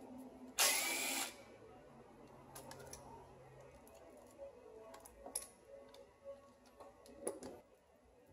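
A short burst from a power tool, under a second long, about half a second in. It is followed by scattered clicks and clinks of tools on metal as bolts are worked loose in a car's engine bay.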